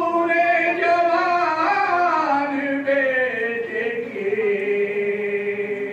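A man chanting a Muharram mourning lament (noha) unaccompanied into a microphone, holding long drawn-out notes that slide down in pitch through the phrase.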